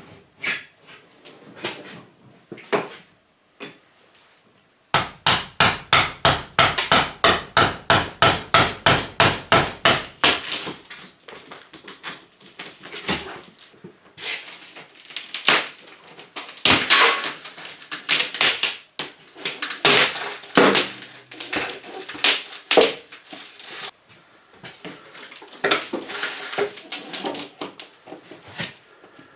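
Cutting a bonded windscreen free with a removal tool. A fast, even run of sharp strokes, about four a second, lasts about five seconds, then gives way to irregular scraping, knocks and creaks as the glass is worked loose.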